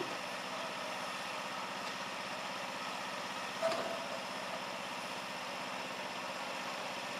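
Miniature steam locomotive standing with steam up, a steady hiss of steam, with one short sharp knock about three and a half seconds in.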